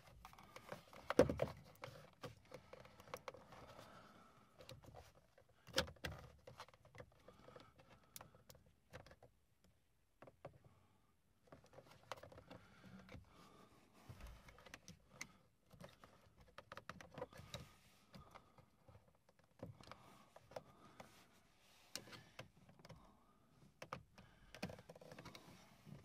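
Scattered small clicks, taps and scrapes of a flathead screwdriver prying at the plastic clips of an old headlight-switch wiring connector while the switch is handled, with a sharper knock about a second in and another near six seconds in.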